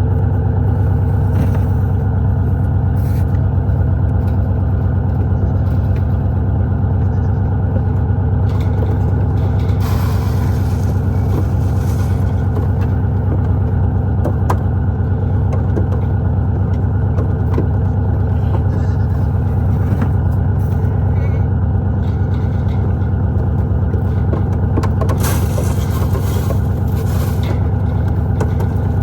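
A motor vehicle's engine running steadily at an even speed, with a low constant hum. Brief rushing noises come in about ten seconds in and again near the end.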